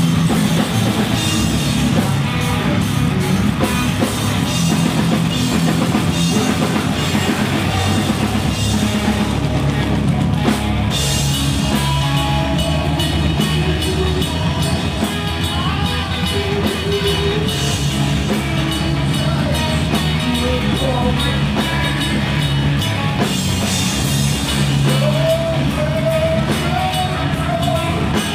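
Stoner rock band playing live, with heavy electric guitars and a pounding drum kit.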